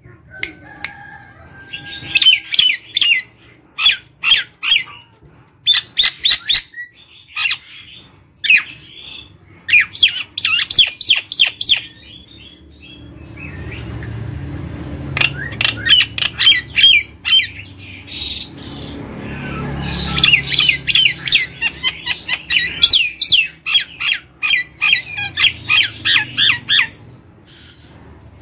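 Common myna (jalak nias) singing in repeated bursts of rapid harsh chattering, clicks and short whistled notes. A low rumble swells under the song through the middle.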